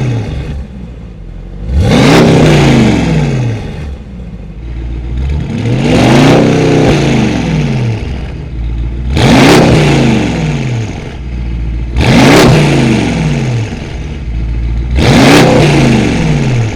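Mercedes-AMG GT 63 S twin-turbo V8 blipped through an iPE valved exhaust, about five sharp revs roughly three seconds apart. Each climbs quickly in pitch and drops back to idle.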